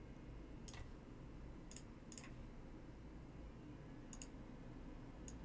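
Faint computer mouse clicks, about half a dozen spread irregularly, one pair close together, over a low steady room hum.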